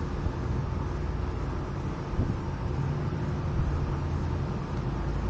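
Steady low mechanical hum with a faint constant tone, growing slightly louder near the end.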